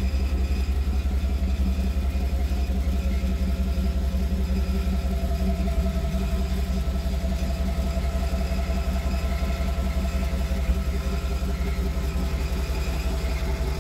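Engine of a 1959 Chevrolet Apache pickup on a 1989 K5 Blazer chassis idling steadily.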